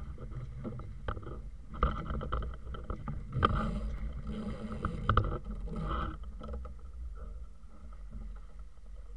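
Water splashing and slapping against the hull of a small sailing yacht under way, over a steady low rumble, with many irregular knocks and clatters from the boat, loudest in the middle.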